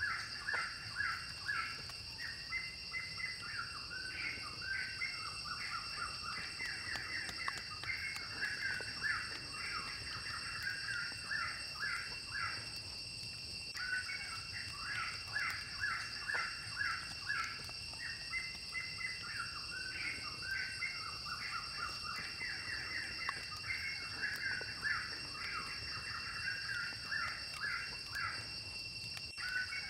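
Forest birds chirping in quick, busy runs that pause briefly about halfway through, over a steady high-pitched drone.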